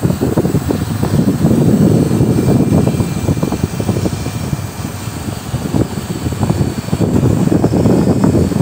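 Wind buffeting the phone's microphone: a loud, gusty low rumble that flutters rapidly and dips slightly in the middle before picking up again.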